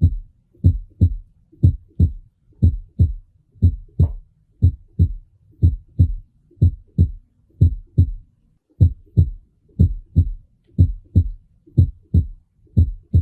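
Heart sounds heard on auscultation: paired beats, the first heart sound (S1, 'tum') followed closely by the second heart sound (S2, 'tá'), about one pair a second. The short gap within each pair is systole; the longer pause before the next pair is diastole.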